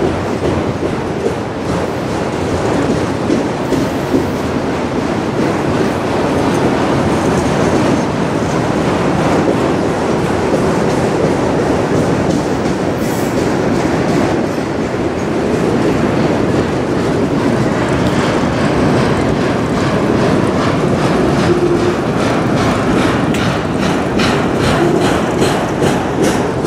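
Freight train of autorack cars rolling slowly past, a steady loud rumble and rattle with wheels clicking over the rail joints. The clicks become more distinct and regular in the last several seconds.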